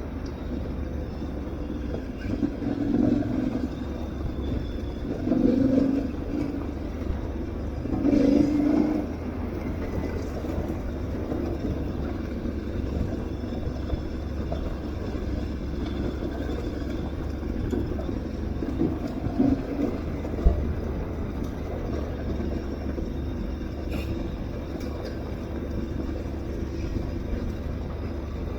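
Aprilia Tuareg 660's parallel-twin engine running under way off-road, with a steady low rumble of wind and travel. The engine note swells briefly three times in the first ten seconds as the throttle opens, and there is a single sharp knock about two-thirds of the way through.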